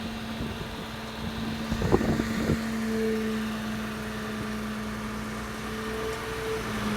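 An engine running at a steady speed, with a couple of short knocks about two seconds in.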